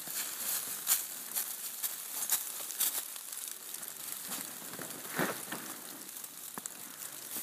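Dry fallen leaves rustling and crackling as a Eurasier dog pushes its nose through the leaf litter on a scent track and steps move through the leaves, with many small irregular crackles and a louder rustle about five seconds in.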